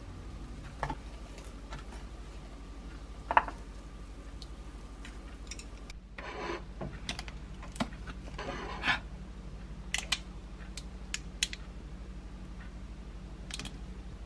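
Kitchen handling sounds over a steady low hum: scattered clicks and taps of utensils and a plate, with a loud click about three seconds in and two short hissy bursts near the middle, as a waffle is plated and ketchup is squeezed from a bottle over it.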